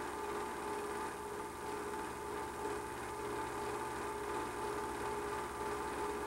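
Steady machine hum and hiss with two constant whining tones, unchanging throughout.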